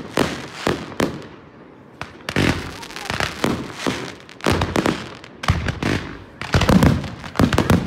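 Aerial fireworks display: rapid salvos of shell bursts and crackling, the bangs packed close together. There is a brief lull about a second in, and the salvos grow heavier and louder near the end.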